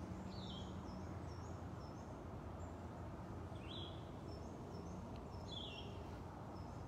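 Outdoor ambience: a bird gives a short falling chirp three times, about two seconds apart, with fainter high chirps between, over a steady low background hum.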